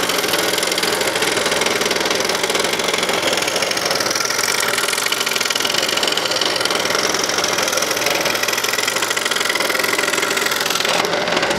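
Scroll saw running steadily, its reciprocating blade cutting through a wooden blank with a fast, even chatter.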